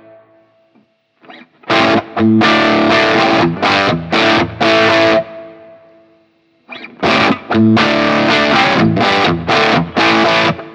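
Electric guitar played through a BSM Starbreaker tube-power-amp-simulator pedal into a Marshall Plexi amp, giving a distorted crunch tone. It plays two short riffs of strummed chords, one starting about two seconds in and one about seven seconds in, each ending on a chord left to ring out and fade.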